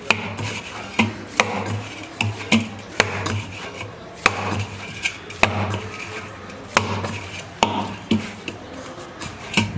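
Hands kneading a stiff maida dough in a stainless steel bowl: rubbing and scraping against the metal, with a dozen or so irregular knocks as the dough is pressed and pushed against the bowl.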